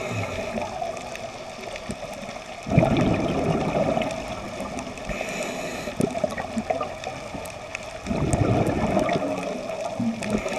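Scuba diver's regulator underwater: two bursts of exhaled bubbles gurgling, about three seconds in and again about eight seconds in, over a faint steady hiss.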